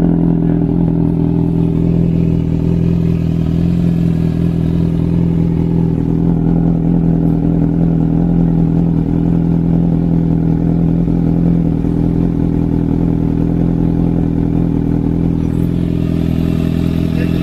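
Kawasaki Ninja ZX-6R inline-four engine idling steadily through an SC Project slip-on exhaust, with no revving.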